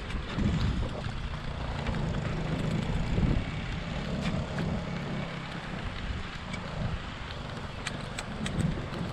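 Wind buffeting the microphone of a camera riding along a rough paved path, with the low rumble of tyres over the surface. A few brief rattles come near the end.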